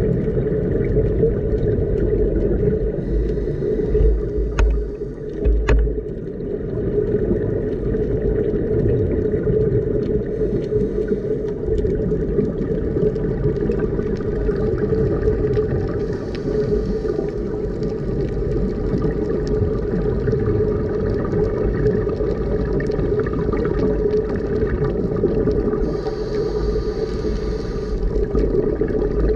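Underwater sound during a scuba ascent: a steady low drone with faint humming tones, broken a few times by short hissing bursts of a diver's exhaled regulator bubbles.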